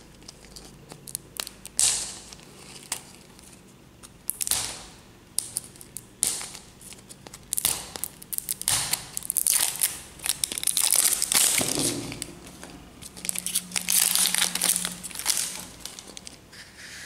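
Printed plastic wrapper being torn and peeled off a plastic surprise egg: irregular crinkling and tearing in bursts, busiest in the second half.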